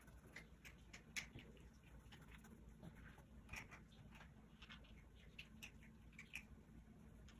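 Faint, irregular scratching and light tapping of a flat Condor paintbrush dabbing fabric paint onto cloth, over a low steady hum.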